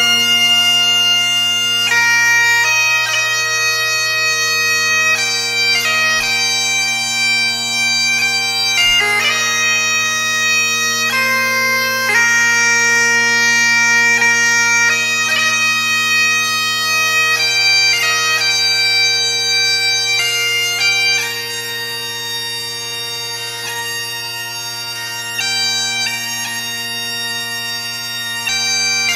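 Bagpipes playing a slow melody of held notes over their steady, unbroken drones.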